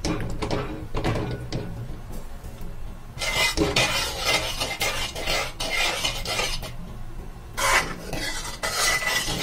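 A metal spoon stirring grated pumpkin and milk in a metal pan, scraping against the pan in repeated strokes, which grow heavier about three seconds in.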